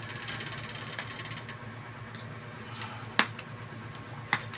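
A few sharp small clicks and taps of handling an open laptop's parts while its M.2 SSD is taken out, the loudest about three seconds in, over a steady low hum.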